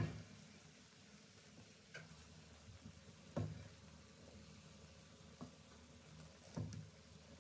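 Faint stirring of cooked rice with a wooden spoon in a nonstick pot, with several soft knocks of the spoon against the pot.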